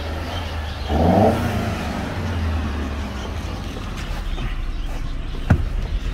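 Mercedes C200 car engine running at idle, with a short louder swell about a second in and a single sharp click near the end. The owner calls the car smooth after tracing a cylinder 4 misfire to dirty injectors.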